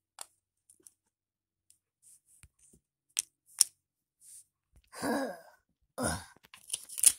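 Small gold toy coins being set down and stacked: a few faint clicks, then two sharper clinks a little past the middle. Near the end come two short, louder noises.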